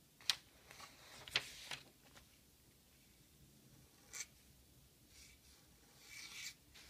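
Pointed dip nib scratching across paper in short pen strokes. There is a cluster of quick strokes in the first two seconds, another about four seconds in, and a longer drawn stroke near the end.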